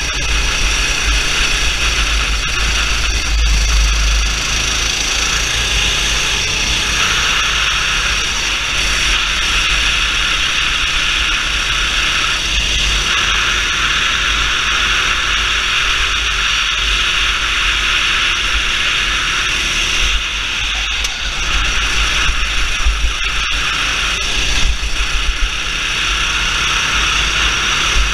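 Racing kart engine running on track, its pitch rising and falling with the throttle, half buried under steady wind rush and buffeting on the onboard camera's microphone. A few brief knocks come through about two-thirds of the way in.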